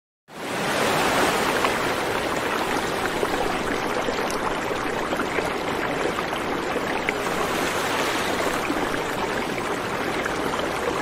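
Steady rushing of water, like a stream running hard. It starts suddenly and cuts off suddenly.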